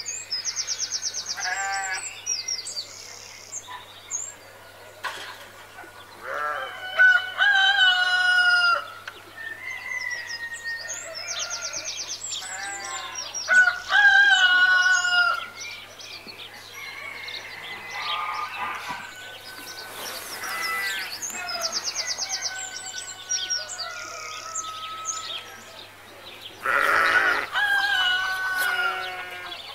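Farmyard sounds of roosters crowing, hens clucking and small birds chirping. Two loud crows come about seven and fourteen seconds in, each lasting a couple of seconds.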